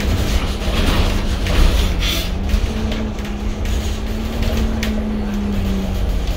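Bus running through town, heard from inside the cabin: a steady engine drone and road rumble, its note rising a little about halfway through and dropping again near the end, with a few faint rattles.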